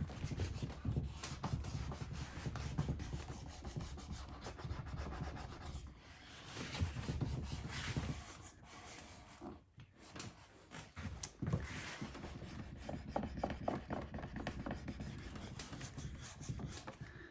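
Saddle leather being rubbed and worked by hand as the seat is smoothed into place: steady rubbing and scraping, a short break about ten seconds in, then a run of quick light clicks.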